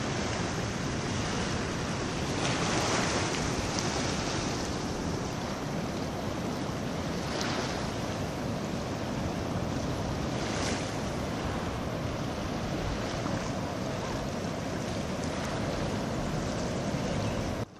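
Steady rush of wind on the microphone mixed with shallow lagoon water lapping, with a few brief louder swishes.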